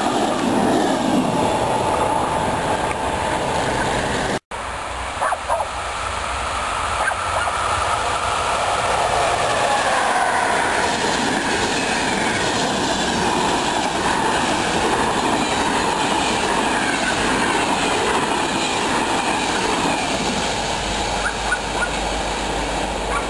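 Passenger train rolling past with the steady rumble and clatter of its coaches' wheels on the rails, then drawing away. The sound drops out for an instant about four seconds in.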